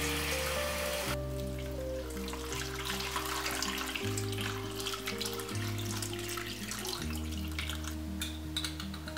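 Soft instrumental background music with held notes. Under it, water is poured from a glass jug into a stainless steel pot of peeled potatoes, stopping about a second in. Light clicks of a spoon in a glass salt jar follow.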